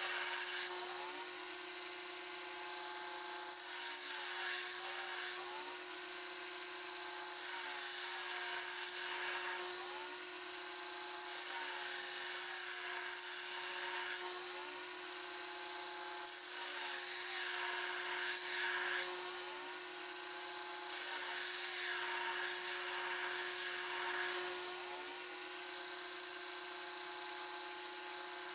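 Belt grinder running with a steady hum while a forged carbon-steel knife blade, held in a clamp-on bevel jig, is ground against the belt. The grinding rasp rises and falls in repeated passes, a new pass every four to five seconds.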